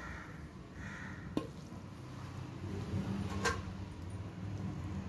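Metal serving spoon scraping and clinking against a steel pot and plate as cooked rice is served, with two sharp clinks about a second and a half and three and a half seconds in. A low steady hum runs underneath.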